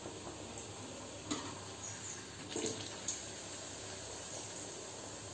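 Hot oil sizzling steadily in a kadhai as a potato puri deep-fries, with a few light clicks about one, two and a half and three seconds in.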